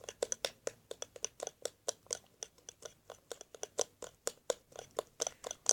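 Liquid soap being stirred by hand in a container as it thickens into slime: a quick, irregular run of small clicks and scrapes of the utensil against the container, several a second.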